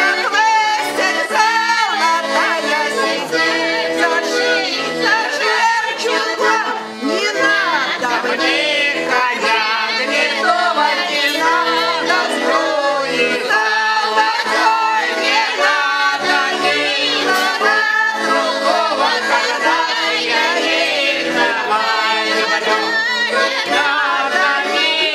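A Russian garmon button accordion playing a folk song while a group of guests sing along with it.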